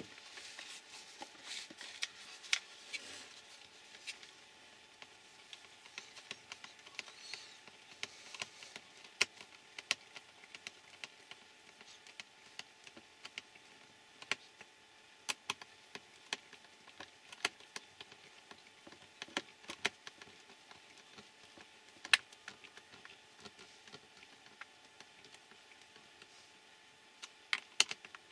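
Scattered small clicks and taps from handling a hobby RC car's plastic chassis, its wiring and a small screwdriver, with faint rustling in the first few seconds.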